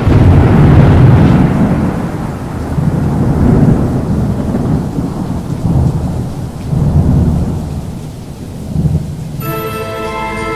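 Thunderstorm sound effect: deep rolling thunder rumbling in waves over steady rain, loudest at the start and slowly easing. Music with held tones comes in about nine seconds in.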